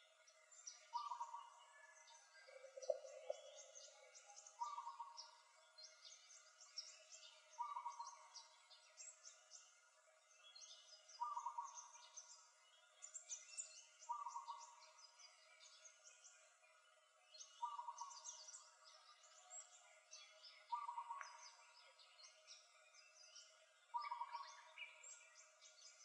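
Faint rainforest bird chorus: many high, overlapping chirps, with a lower call repeated about every three seconds and a short, deeper call about three seconds in.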